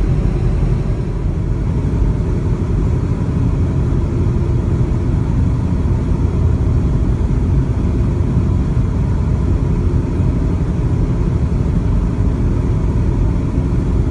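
Steady low rumble of a vehicle on the move: engine and road noise, unbroken throughout.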